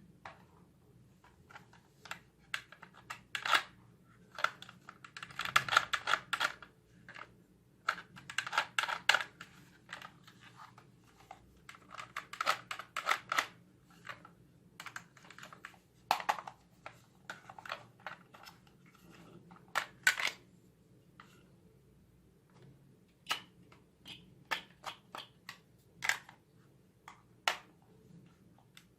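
Hard plastic clicks and short rattling runs of clicks from a toy gun being handled, coming irregularly with pauses between.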